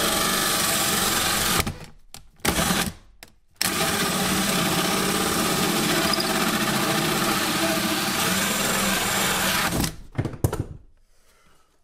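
Cordless drill turning a hole saw through wood. It runs steadily, stops and restarts briefly about two seconds in, cuts continuously again, and stops about ten seconds in.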